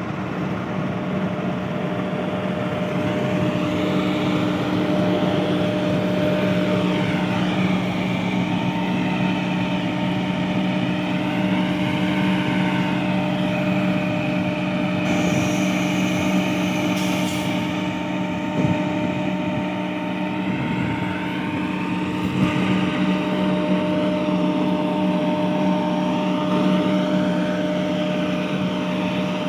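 GE GEU40 diesel-electric locomotive idling at a standstill: a steady engine drone with constant humming tones. A brief high hiss about halfway through.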